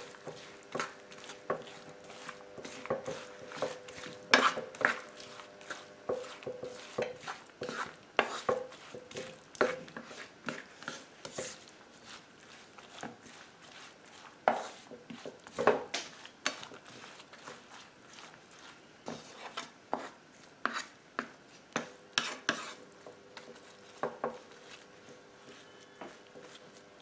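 A spoon stirring diced vegetables and egg frying in a pot, knocking and scraping against the pot in irregular clicks, some louder than others, with a faint steady hum underneath.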